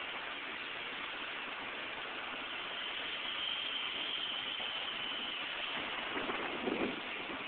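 Steady hissing outdoor background noise with a faint engine running, and a few short louder sounds near the end.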